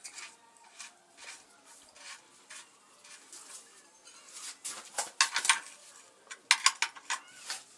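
Metal hand tools clinking and clattering while oil-change work goes on. Light scattered clicks build to two bursts of sharp metallic clinks, about five and about seven seconds in.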